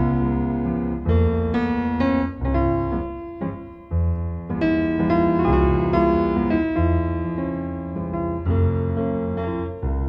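Background piano music: sustained chords over low bass notes that recur every second or two.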